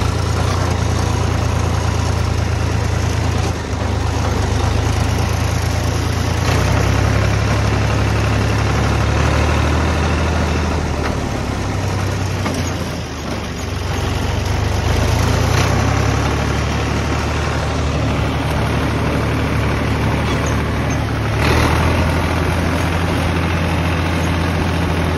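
Farm tractor's diesel engine running steadily as the tractor drives along a dirt track, its low note shifting slightly a few times, with wind noise on the microphone.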